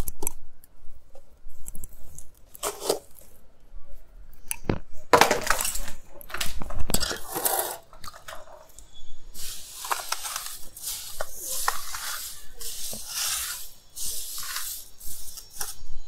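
Sand being scooped with a stiff sheet, poured into a plastic tub and spread by hand: irregular gritty scraping and rustling with small clicks.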